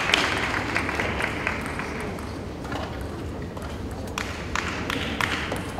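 Arena applause fading out over the first couple of seconds, then a few sharp clicks near the end as a table tennis ball is bounced.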